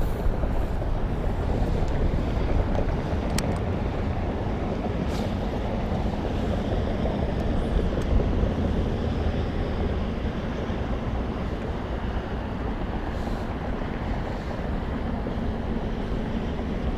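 Steady wind rumbling on the microphone over small waves lapping against a fishing boat's hull, with a few faint clicks scattered through.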